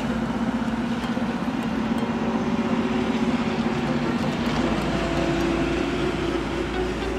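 Car engine running steadily; its hum steps up to a higher pitch about four and a half seconds in.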